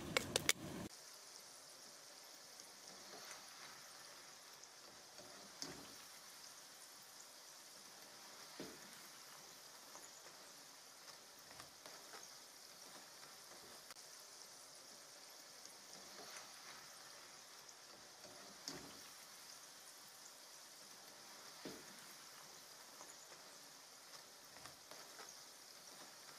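A few popcorn kernels popping in the first second, then potato fries sizzling in hot oil in a frying pan: a steady faint hiss with an occasional small pop.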